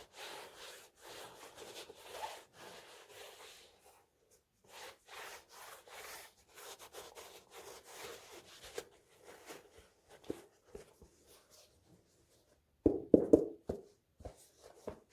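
Rustling and rubbing as a sneaker and its packaging are handled, with a quick cluster of louder knocks near the end.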